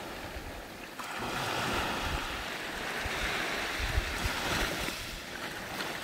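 Small Caribbean waves washing up a sandy beach. One wash swells about a second in and eases off near the end, with some wind buffeting the microphone underneath.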